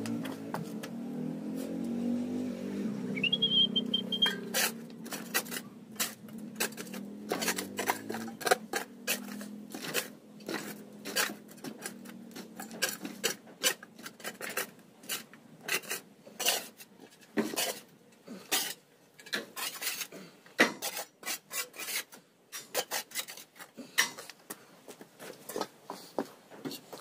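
Irregular sharp clicks, knocks and scraping clatter, as of objects being handled against a basin. A motor hums underneath for the first several seconds and fades out, and there is a brief high squeak about three seconds in.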